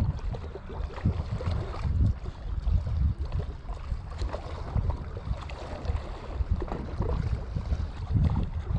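Wind buffeting the microphone in uneven gusts, a heavy low rumble that rises and falls, with faint scattered ticks and splashes above it.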